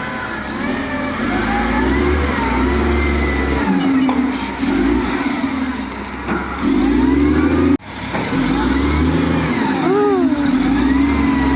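Bulldozer's heavy diesel engine running under load, its pitch repeatedly rising and falling as it revs. The sound breaks off abruptly about eight seconds in and resumes at once.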